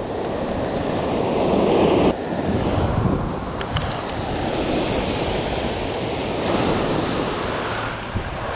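Ocean surf washing up over a sandy beach at the water's edge: a steady rush of foaming water, with wind buffeting the microphone. The rush cuts back sharply about two seconds in and then builds again.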